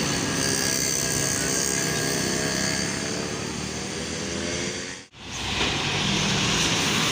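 A bus passing on the road, its engine drone slowly falling in pitch under steady tyre and traffic noise. The sound cuts out briefly about five seconds in, then the traffic noise resumes.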